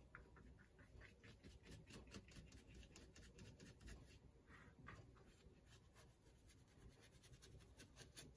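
Faint quick scratching of a paintbrush scrubbing acrylic paint onto heavily layered, textured watercolor paper, in short strokes about four or five a second.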